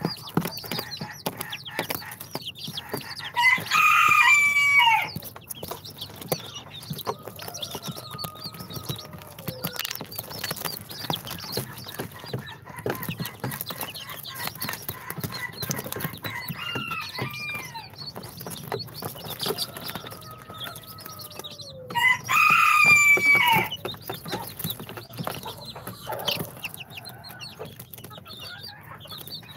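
Young chicks calling and moving about, with many short ticks and taps and thin falling calls. Two loud drawn-out crowing calls of about a second and a half stand out, one about 3.5 seconds in and one about 22 seconds in.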